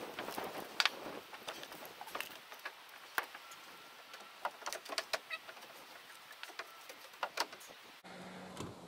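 Sparse light knocks and clicks of timber and tools being handled on scaffolding, with birds calling in the background.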